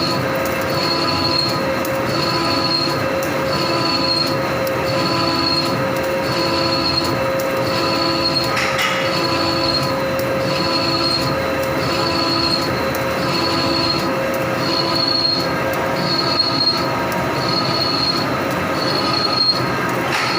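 Vertical turret lathe running a facing cut: a steady machine whine with several held tones, and a high-pitched squeal that pulses about once a second.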